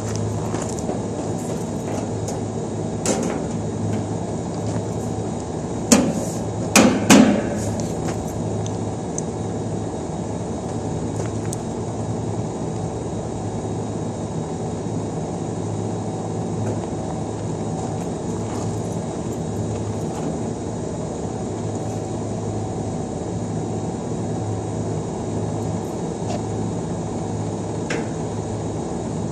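A few sharp metal knocks, loudest one about six seconds in and a quick pair about seven seconds in, as the sheet-metal cover of a York split air-conditioner outdoor unit is fitted back on and screwed down. The knocks sound over a steady low machine hum.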